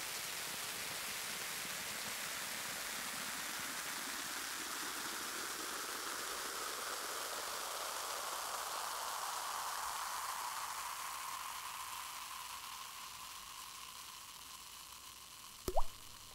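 Hiss of filtered white noise whose sweep slowly narrows down onto a middle pitch and fades out. Near the end, a single short, loud blip rises quickly in pitch.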